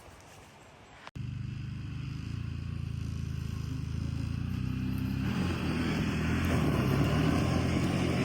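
Faint background hush, then about a second in an ATV engine comes in abruptly and runs steadily, growing gradually louder.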